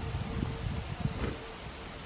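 Wind gusting on the microphone, over a faint steady whine from a distant Alstom Metropolis 98B metro train moving slowly along the depot tracks; the whine fades about a second and a half in.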